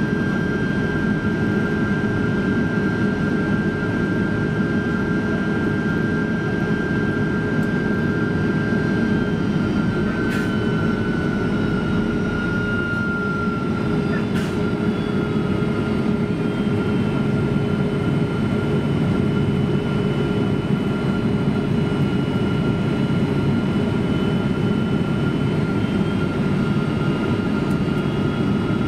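Cabin noise inside a Boeing 767-300 airliner in flight: a steady jet engine drone and rush of air, with a high whine that slides slightly lower in pitch about ten to fourteen seconds in. Two faint clicks come in the middle.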